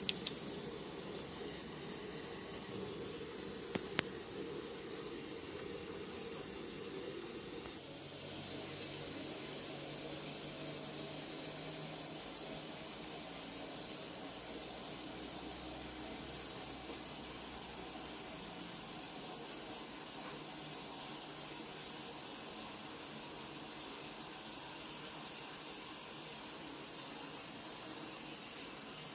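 Steady rushing of running water, with a single faint click about four seconds in and the hiss turning brighter about eight seconds in.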